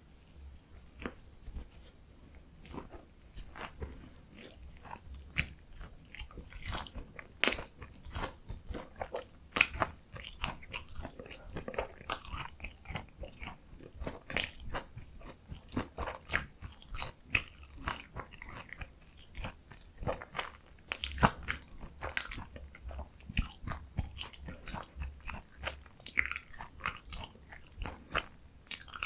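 Close-miked crunching and chewing of a potato-coated mozzarella corn dog, with irregular crisp crackles from the fried crust as it is bitten and chewed.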